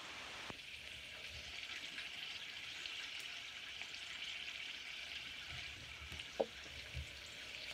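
Steady sizzling hiss of a cider-can chicken cooking under a domed metal lid over a wood fire, with a couple of short pops near the end.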